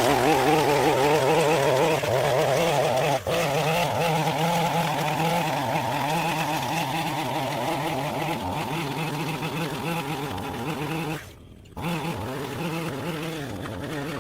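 Gas string trimmer running steadily, its engine pitch wavering as the line cuts. The sound breaks off briefly about three seconds in and again about three-quarters of the way through.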